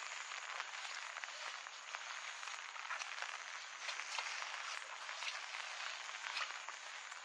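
Light rain falling steadily, a dense patter of small drops on grass and water, with a thin high steady whine above it.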